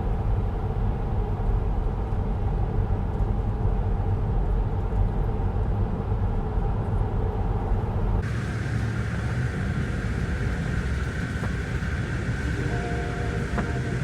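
Steady deep rumble of a car driving along a road, engine and tyre noise. About eight seconds in, the sound changes abruptly: the deepest rumble drops and a higher hiss comes up.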